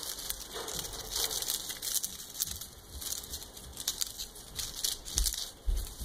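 Eclectus parrot chewing and tearing at a woven chew toy with its beak: irregular crackling and crinkling.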